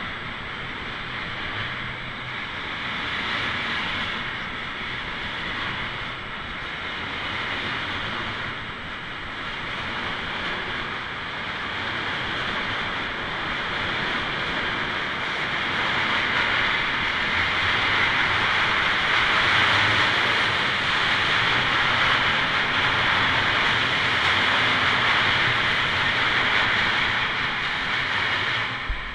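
Freight train passing close by, container wagons and then tank wagons: a steady rush of wheels rolling over the rails with a thin steady high tone running through it. It grows louder in the second half and drops away near the end as the last wagon goes by.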